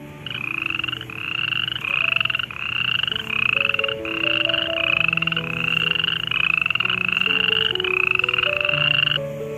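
Rasping, frog-like croaks repeated about two a second in a steady series, each rising slightly in pitch, stopping near the end.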